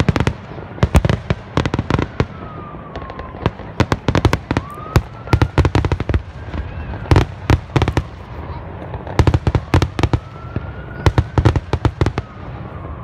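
Aerial fireworks shells bursting in clusters of sharp bangs and crackles, several groups a few seconds apart.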